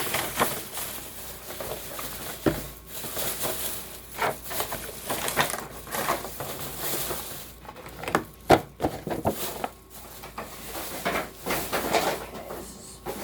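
Toy packaging being handled and opened: irregular rustling, crinkling and clicks of plastic and cardboard, with one sharp snap about eight and a half seconds in.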